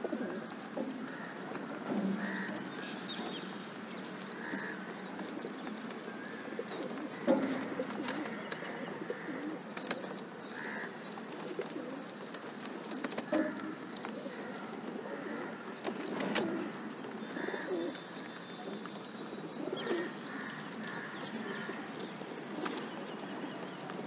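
Rock pigeons cooing over and over while they feed, with scattered sharp knocks and flutters among the flock, the loudest about seven seconds in. Faint high bird chirps sound above the cooing.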